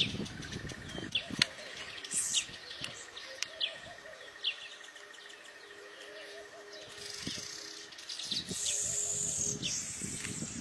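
Weaver birds chirping: a scatter of short, sharp chirps, with a longer, buzzy high call about two seconds in and another near the end.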